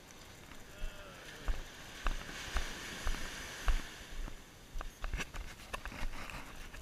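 Footsteps on wet sand, thumping about twice a second, over the steady wash of small waves breaking on the beach, with a few sharp clicks near the end.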